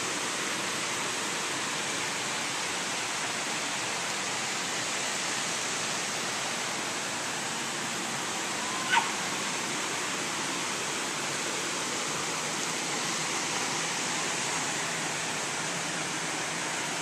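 Steady rushing hiss of water spilling over small stone cascades between garden pools. One brief, sharp higher sound cuts through about halfway through.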